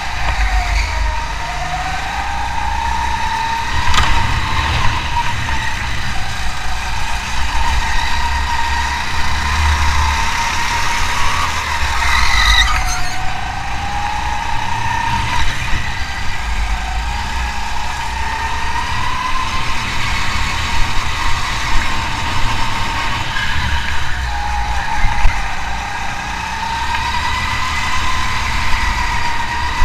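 Car engine running hard, its revs falling and climbing again several times, over a heavy low rumble. A couple of sharp clicks are heard, one about 4 seconds in and one about 12 seconds in.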